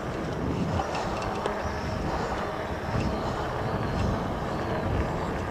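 Steady rush of wind over the microphone and tyre noise from a fat-tyre electric bike being ridden along.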